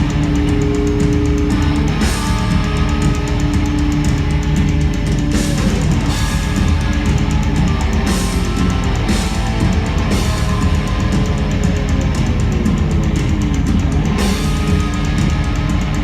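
Heavy metal music: electric guitars over a drum kit, loud and continuous.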